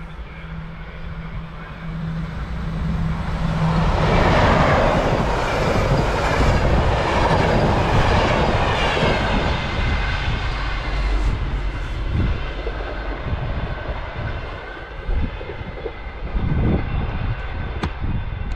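Passenger train passing at speed: the rush of wheels on rail builds over the first few seconds, peaks as the coaches go by, then fades slowly as the train recedes, its whine falling in pitch.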